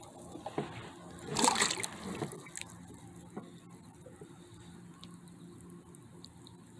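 A crappie splashing into lake water as it is put over the side of a kayak, one splash about a second and a half in, followed by small sloshes and trickles of water.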